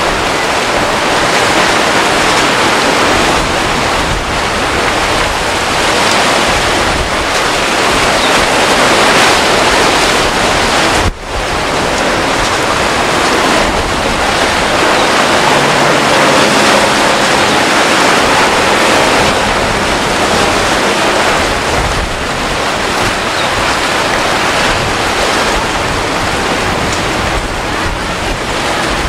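Rough surf breaking in strong wind, with wind rushing over the microphone: a loud, steady rush of noise that drops out for an instant about eleven seconds in. A faint low hum rises through it partway along.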